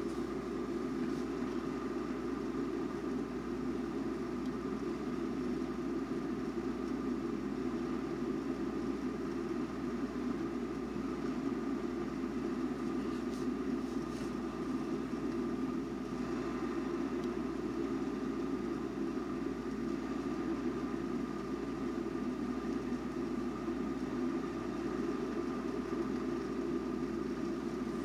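Glass electric kettle heating water before the boil: a steady low rushing hiss as small bubbles form on the heating plate, with a faint steady whine above it.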